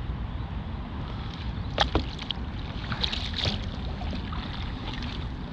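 Wind rumbling on the microphone and water moving against a plastic kayak hull, with two sharp knocks close together about two seconds in and a short hissing patch about a second later.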